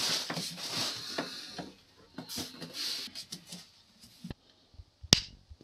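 Cardboard parcel boxes being lifted from a cupboard and carried, rustling and scraping against each other, with scattered small knocks. One sharp click sounds about five seconds in.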